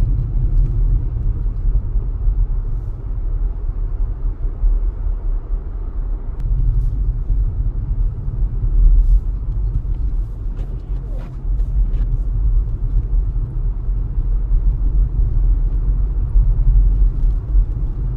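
A car being driven, heard inside the cabin: a steady low rumble of engine and road noise, with a few faint clicks near the middle.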